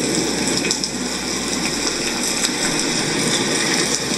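Recorded rain sound played through the small speaker of an Elesories S5 STD white noise machine: a steady hiss of falling rain at a fairly high volume.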